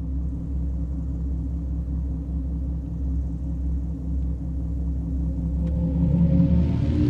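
Steady low car rumble with a few humming tones in it. It grows louder, and higher tones join in near the end.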